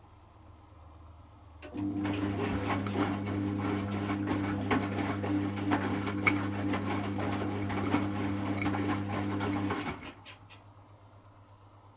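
Servis M3008B washing machine drain pump switching on about two seconds in and running for about eight seconds with a steady hum and a dense crackling rush of water over it, then cutting off: the rinse water is being pumped out ahead of the final spin.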